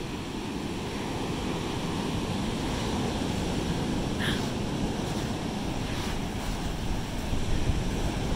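Ocean surf washing up a coarse-sand beach and breaking against a rock, with wind rumbling on the microphone. The surf grows a little louder near the end as a wave crashes on the rock.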